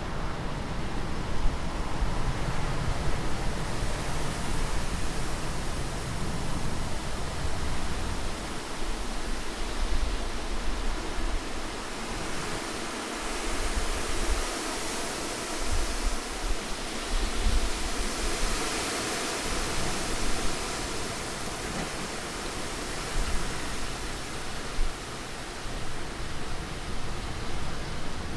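Strong wind blowing: a continuous rushing noise that swells and eases in gusts, with a low rumble that fades through the middle and returns later on.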